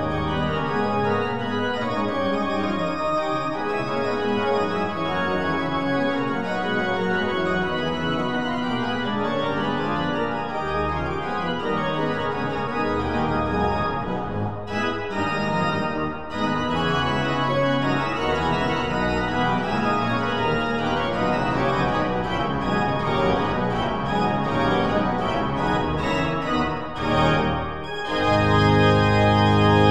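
Background music: an organ playing slow sustained chords, ending on a loud held chord near the end.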